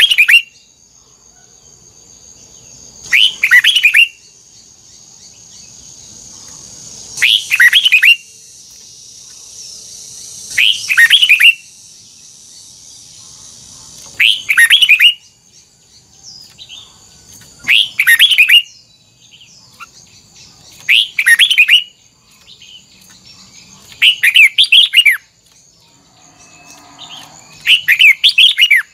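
Red-whiskered bulbul singing: short, loud phrases of quick falling whistled notes, repeated about every three and a half seconds.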